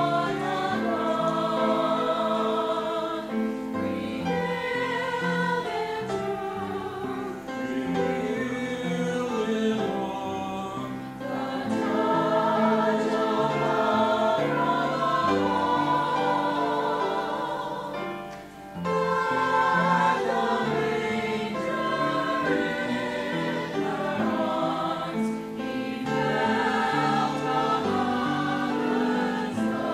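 A choir singing a hymn in long, held phrases, with a short break between lines about two-thirds of the way through.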